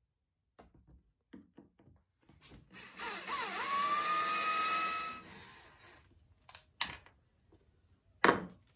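Electric drill boring a hole through a steel angle bracket: the motor whine dips briefly as the bit bites, holds a steady pitch for about two seconds, then spins down. A few sharp knocks follow, the loudest near the end.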